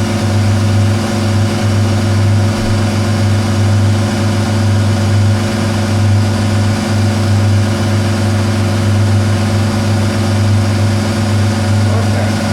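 Manual metal lathe running at a steady speed, its motor and gearing giving a constant low hum.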